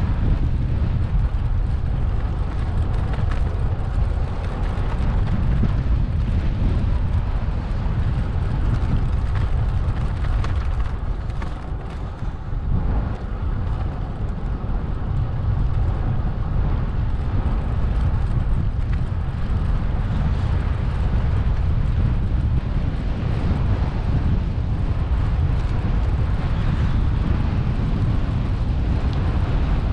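Steady low rumble of wind buffeting the microphone and road noise while riding along, with a brief easing about twelve seconds in.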